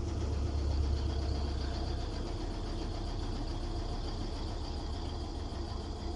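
Mabe washing machine in its spin cycle, the drum spinning at about 700 rpm: a steady low hum with a faint high whine above it.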